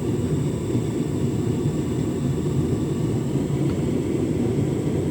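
Beko WTK104121W washing machine running a hot drum-clean wash with water in the drum: a steady low rumble of the drum and motor.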